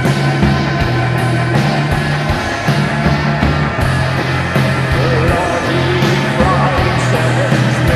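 Music: a darkwave/post-punk rock band's recording playing, a dense full-band mix of drums, bass, guitar and keyboards over a steady beat. A wavering melodic line comes in about five seconds in.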